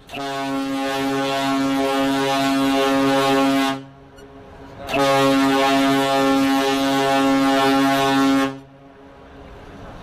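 Passenger ship's horn sounding two long blasts of about three and a half seconds each, a deep, steady note rich in overtones, with a short gap between them.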